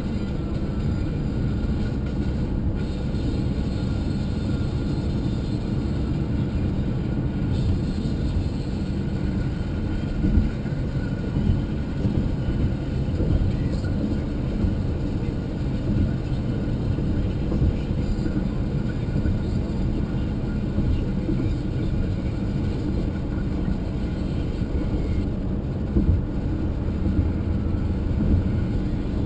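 Car driving along a highway: steady road and engine noise with a faint steady high whine, and a couple of brief louder bumps about ten seconds in and near the end.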